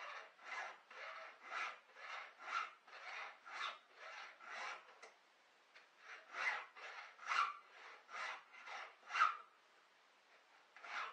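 A hand file sharpening a chainsaw chain's cutters: short filing strokes about two a second, stopping for a moment about five seconds in, then resuming, with another short break near the end.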